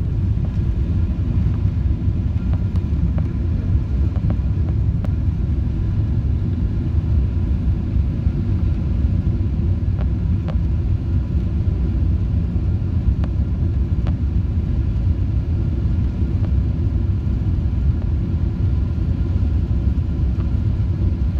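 Steady low rumble of airflow and engines heard inside the cabin of a Boeing 777-300ER airliner on final approach, with a few faint ticks.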